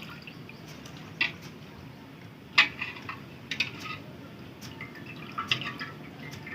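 Raw goat meat being washed by hand in a bowl of water: a few short splashes and drips, the loudest about two and a half seconds in.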